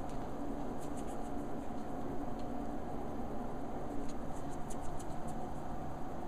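Small kittens' claws making faint light scratches and ticks on cushion fabric and a wooden floor, a few about a second in and a cluster from about four to five and a half seconds, over a steady low background hum.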